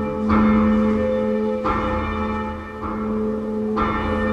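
Church bell rung by hand with a pull rope, tolling with four strokes about a second apart. Each stroke rings on over a lingering hum.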